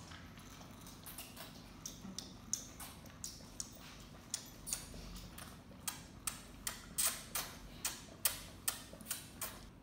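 Siberian tiger cub suckling from a milk bottle: a run of short, wet sucking clicks, faint at first, then about two to three a second and louder in the second half.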